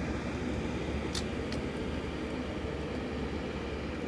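Steady drone of an aircraft engine running, with a low hum and a few steady tones, and a short click about a second in.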